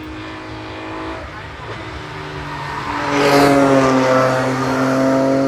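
Race car engine approaching and passing close by about three seconds in, getting louder up to the pass, then holding a steady note that drops slightly in pitch as it moves away.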